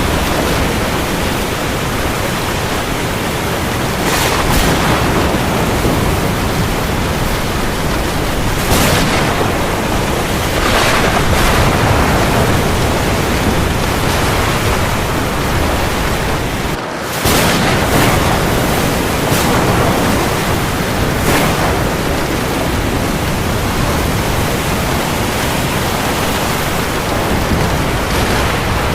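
Heavy rain falling on the sea: a dense, steady hiss of rain with several short swells in loudness and one brief dip about two-thirds of the way through.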